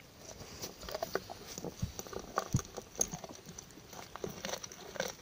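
A dog gnawing a corn cob: irregular soft crunches and clicks of teeth on the cob and kernels.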